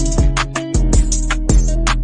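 Background music with a steady drum beat, cymbal hits and a sustained bass and melody line.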